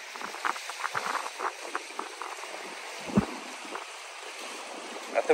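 Small sea waves lapping and splashing against the boulders of a rock breakwater, in many short splashes, with one louder thump about three seconds in.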